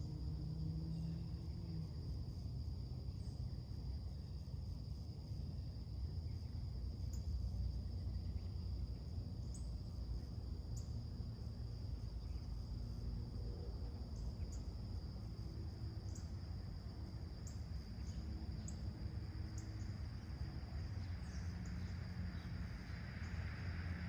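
A steady, high insect chorus trilling without a break over a low, constant rumble of distant traffic, with faint scattered bird chirps. Near the end a passing vehicle's noise swells up.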